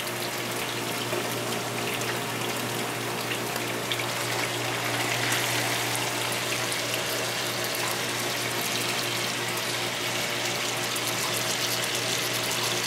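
Chopped tomatoes sizzling and crackling in hot olive oil in a frying pan as they go in by hand. A pot of pasta water boils alongside. The hiss swells a little about five seconds in, over a steady low hum.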